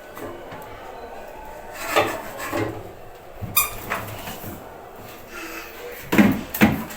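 Fridge door and drawers being handled: scattered clunks, a sharp click about halfway through, and the loudest two knocks near the end.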